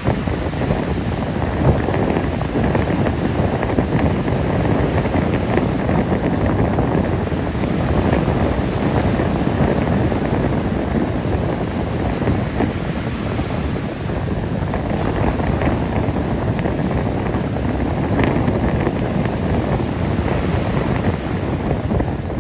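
Wind buffeting the microphone over surf breaking and washing up the beach: a loud, steady rushing noise.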